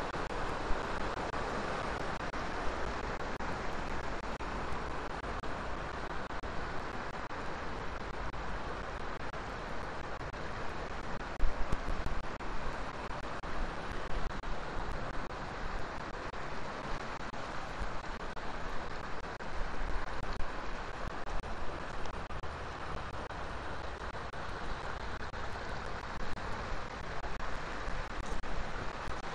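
Water rushing over a river weir and down a rocky channel: a steady rushing hiss. Gusts of wind rumble on the microphone now and then, the strongest about eleven seconds in.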